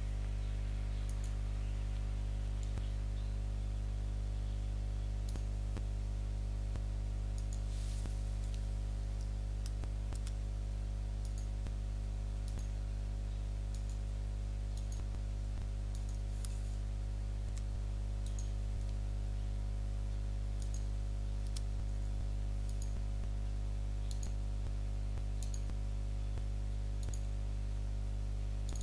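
Computer mouse clicking at irregular intervals of a second or two, over a steady low hum.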